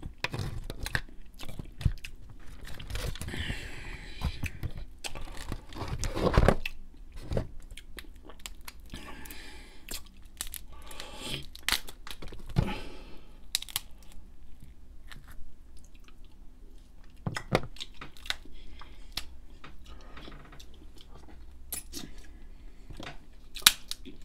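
Close-miked eating sounds: crab legs cracked and snapped by hand, shell crunching and meat pulled from the shell, mixed with wet chewing and mouth smacks. A sharp crack stands out near the end.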